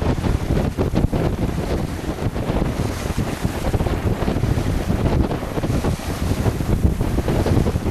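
Heavy gusting wind buffeting the microphone aboard a small sailboat, a constant uneven rumble, with water rushing and slapping along the hull underneath.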